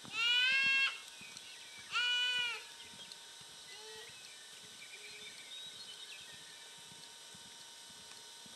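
A goat bleating twice, two short calls under a second each, the second coming about a second after the first ends.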